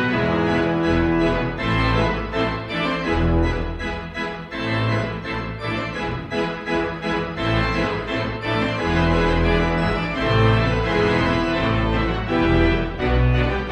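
Organ music: sustained chords over a moving bass line, in the manner of a Hammond-style organ.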